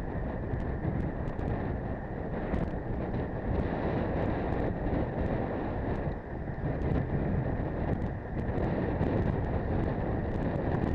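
Wind rushing steadily over the microphone of a bike-mounted camera on a road bike riding in a group, with scattered small clicks over it.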